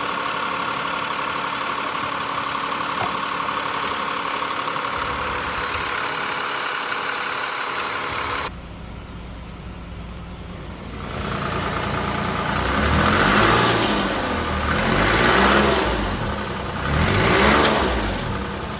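Toyota 1JZ-FSE 2.5-litre straight-six idling steadily, then, after an abrupt cut to another take, revved up three times about two seconds apart. The engine is one that is said to be making extraneous noises.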